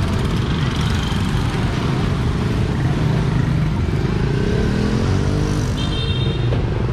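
Street traffic of motorbikes and scooters, a steady low engine rumble, with one engine changing pitch past the middle.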